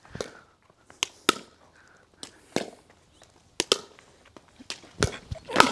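Pickleball dink rally: paddles striking the plastic ball, with the ball bouncing on the tiled court in between. A string of sharp pops roughly a second apart, some in quick pairs.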